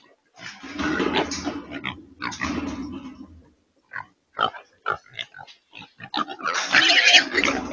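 Trapped feral hogs grunting as they run about a corral trap: two long harsh bursts in the first three seconds, short sharp sounds in between, and a louder harsh burst near the end.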